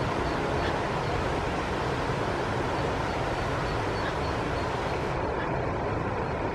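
A steady, even rumble of outdoor background noise, heaviest in the low range, with no distinct calls or splashes standing out.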